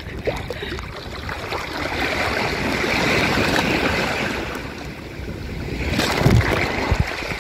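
Shallow surf washing in and out around a swimmer at the water's edge, with water rushing and splashing right at the microphone. One wash swells up and fades over the first few seconds, and another surges in with a splash about six seconds in.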